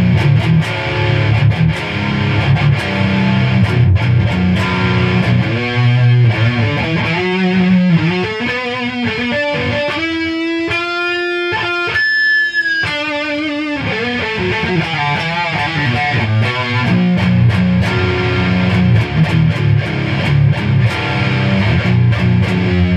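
Gibson Les Paul Studio electric guitar in drop B tuning, played through an amplifier to demo its newly installed pickups. Low chugging riffs open and close the passage, and in the middle, from about six seconds in, come single-note lead lines with bends and vibrato.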